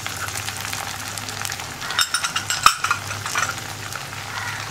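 Curry leaves, ginger and chilies sizzling in hot sesame oil in a frying pan: a steady hiss with fine crackling. About two seconds in comes a burst of louder spitting that ends in one sharp crack.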